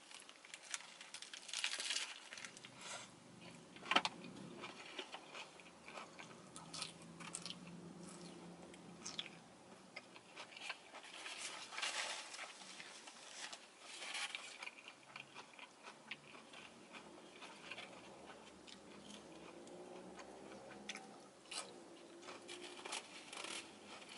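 Close-up chewing of a lettuce-wrapped chicken burger: crisp iceberg lettuce crunching in irregular bites and chews, with one sharp click about four seconds in.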